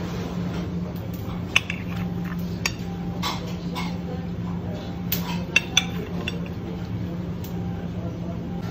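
A knife tapping and clinking against a ceramic plate and metal skewers as seared tuna is sliced between the skewers. A handful of sharp, irregular clinks sound over a steady low hum.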